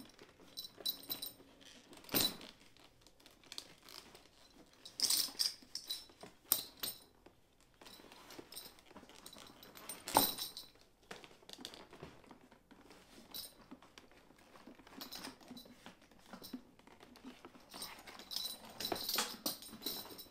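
Veg-tan leather saddlebag being handled and unstrapped: leather rustling, with scattered knocks and clinking and jingling of its metal buckles and hardware, sharpest about 2, 5 and 10 seconds in and again near the end.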